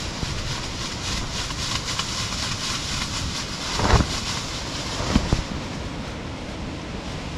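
Strong wind gusting over an ODC Mark 5 dome tent, heard from inside: a steady rushing noise with the fabric rustling and buffeting, and two louder thumps about four and five seconds in.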